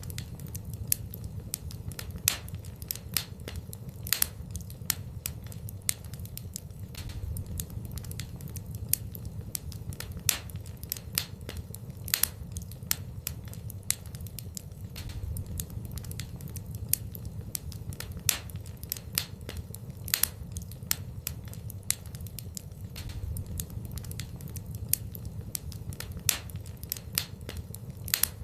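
Wood fire burning in a fireplace: irregular sharp crackles and pops, a few a second, over a steady low sound of the flames.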